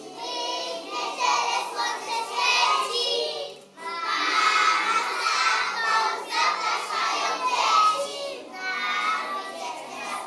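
A group of young preschool children singing together in unison, with a short pause about four seconds in.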